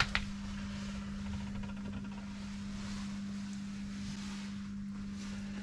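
Electric smoker running with a steady low hum and a faint hiss from its smoke generator and heating, with a short click right at the start.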